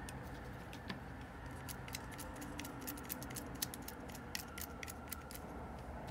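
A run of small, sharp metal clicks, several a second, from handling and fitting the brass frame and parts of an old Shimano Calcutta Conquest 400 baitcasting reel during reassembly, over a steady low hum.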